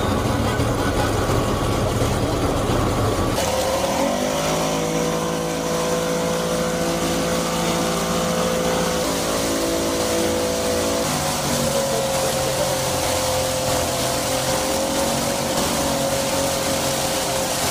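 Twin 50 hp outboard motors driving a passenger boat under way, with water rushing in the churned wake. A few seconds in, the engine note rises and then holds as a steady hum, changing slightly in pitch about two-thirds of the way through.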